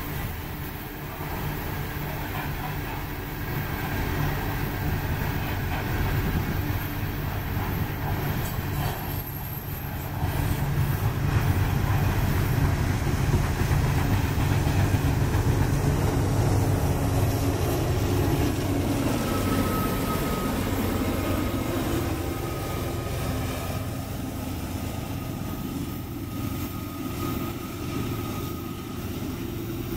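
Steel coal cars of a freight train rolling past: a steady rumble and clatter of wheels on the rails, loudest about halfway through. A faint thin high squeal of wheels comes and goes in the second half.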